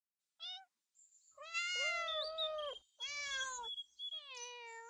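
House cats meowing: about four meows, two of them overlapping, the last one long and falling in pitch.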